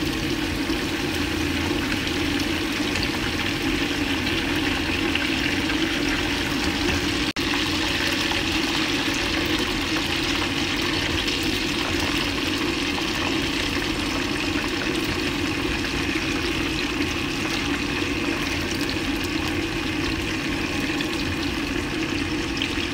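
Hot oil sizzling steadily as bell pepper pieces and then eggplant slices fry in a pan, with a brief break a little over seven seconds in.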